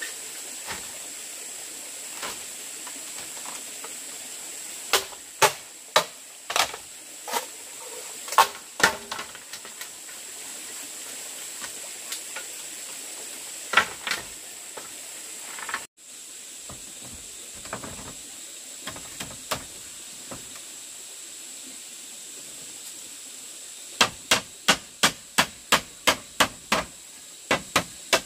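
Hand-tool blows on bamboo: scattered knocks at first, then a steady, even run of about three blows a second near the end. A steady high hiss underlies it.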